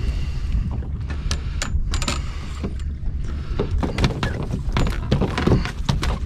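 Sounds aboard a small fishing boat: a steady low rumble under irregular knocks and clatter, which come thickest about two-thirds of the way in.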